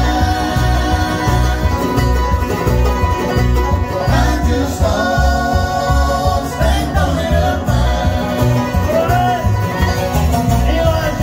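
Live bluegrass band playing on a steady beat, with five-string banjo, mandolin and acoustic guitars.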